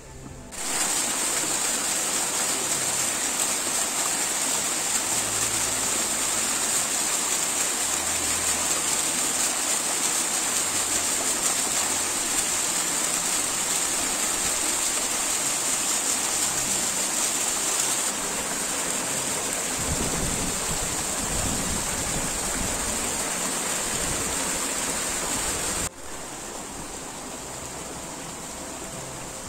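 Small waterfall splashing down over rocks: a loud, steady rush of water that starts suddenly about half a second in. Near the end it cuts to a quieter, steady hiss.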